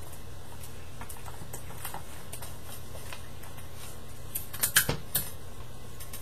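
Paper and sticky tape being handled and pressed down: faint rustles and light ticks, with a short cluster of louder crackles a little under five seconds in, over a steady low hum.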